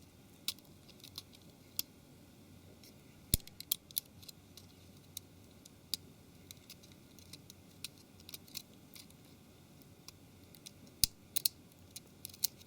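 Irregular small sharp clicks and light taps of a small tool and fingers working a mobile phone's antenna cables out of their plastic clips on the housing. The loudest click comes about three seconds in, and another near the end.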